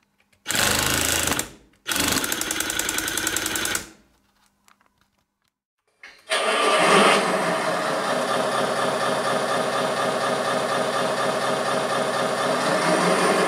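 Simulated diesel engine sound from an RC construction model's sound module: two short bursts of mechanical noise in the first four seconds, then, from about six seconds in, the engine running steadily.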